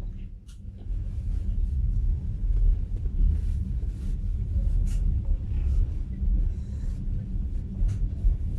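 Passenger train running, heard from inside the carriage: a steady low rumble that grows louder about a second in, with scattered light clicks and knocks over it.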